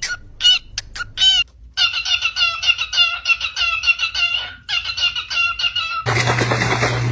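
A parrot making short, repeated squawking calls, a few spaced apart at first and then a fast run of about four or five a second. Near the end the sound cuts to a steady low hum and hiss.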